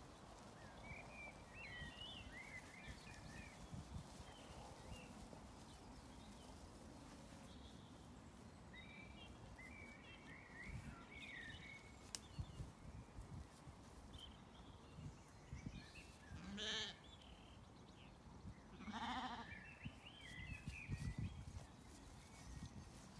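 Zwartbles sheep bleating twice, a short bleat about two thirds of the way in and a longer one a couple of seconds later, over faint high chirps.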